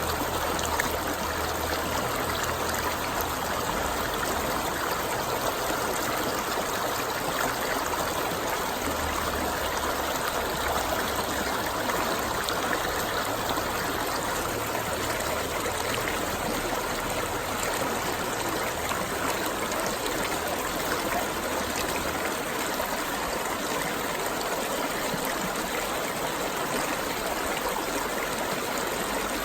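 Running water flowing steadily, an even rushing and trickling sound.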